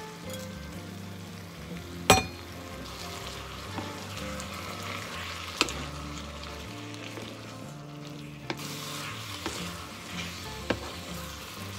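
Food sizzling in a frying pan as it is stir-fried, with sharp clicks of a utensil against the pan, the loudest about two seconds in. Soft background music runs underneath.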